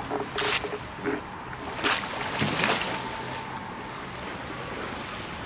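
Steady rush of surf and wind, with a few short noisy bursts in the first three seconds.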